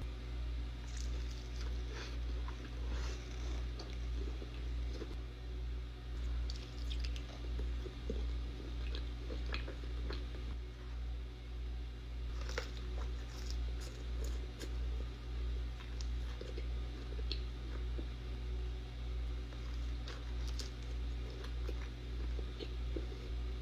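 A person chewing and biting food close to the microphone, with a steady chewing rhythm of a little over once a second and scattered crisp crunches, over a low background hum.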